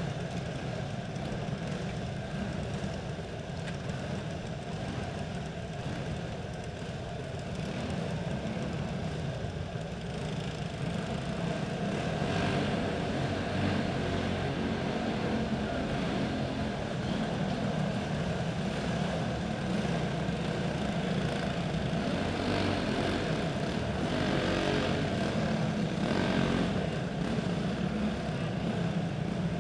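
Racing karts' single-cylinder four-stroke clone engines running on a dirt oval in a heat race, a steady engine drone that grows louder about a third of the way in as the karts come around.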